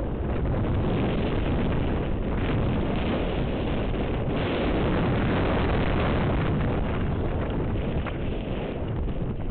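Steady wind noise buffeting a helmet camera's microphone at downhill mountain-bike speed, over the rumble of bike tyres rolling fast on a dirt trail.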